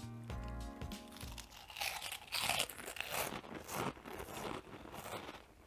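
Music ends about a second and a half in. Then comes the irregular crunching of a mouthful of Saeukkang shrimp crackers being chewed.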